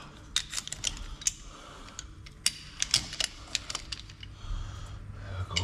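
Irregular sharp metallic clicks and clinks of hand tools and fittings being handled during reassembly of the car's battery and its connections. A low hum comes in about four and a half seconds in.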